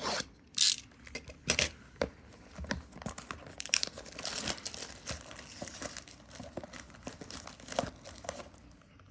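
Packaging of a 2024 Topps Heritage baseball card retail box being torn open and crinkled: a few sharp rips in the first two seconds, then a stretch of dense crinkling.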